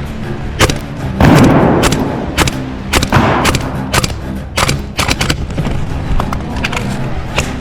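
Airsoft guns firing irregular sharp shots, with two louder, longer bursts of noise about one and three seconds in.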